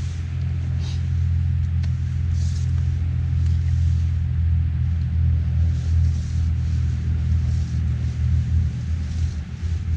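Wind buffeting the microphone: a low rumble that swells and fades in gusts, with a few short faint hisses.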